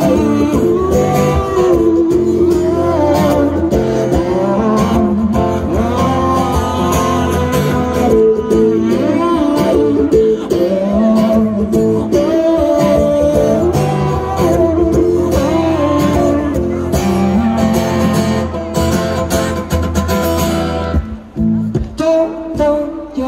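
A male singer performing live with an acoustic guitar, amplified through a festival sound system. Near the end the music thins out and drops in level.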